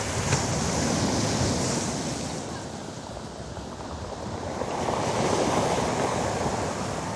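Storm surf breaking on a pebble beach: two waves crash and rush in, one about a second in and another near the end.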